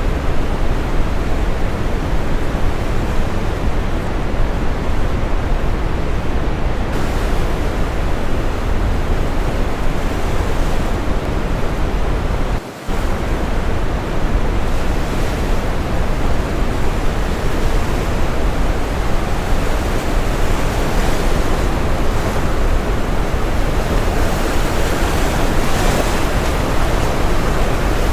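Steady brown noise blended with ocean waves breaking on a shore, a deep even rush with the waves swelling in the higher range now and then. About halfway through the sound dips sharply for a fraction of a second.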